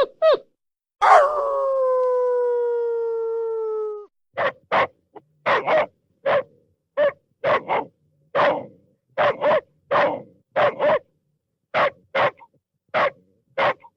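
Dog sound effects: a final short yip at the start, then one long dog howl of about three seconds, sliding slowly down in pitch. Then a long run of barks, often in quick pairs, about two a second.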